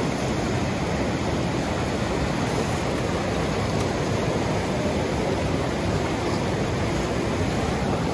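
Fast river rapids rushing over rocks: a steady, even roar of whitewater.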